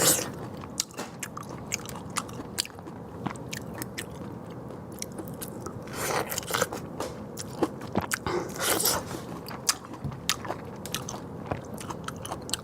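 A person eating close to the microphone: scattered sharp clicks of biting and chewing, with louder bursts about halfway through and again a few seconds later.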